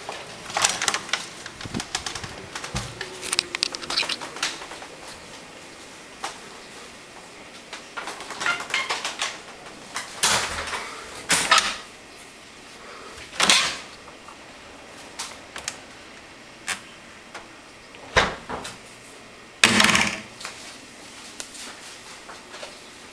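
Irregular clicks, knocks and rattling scrapes of a door and wooden cabinet doors and drawers being handled and opened, with louder clatters about ten, thirteen, eighteen and twenty seconds in.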